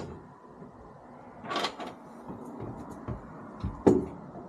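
A few knocks and clunks of tools and metal parts being handled on the metal floor of a pickup truck bed, the sharpest about four seconds in, over low steady background noise.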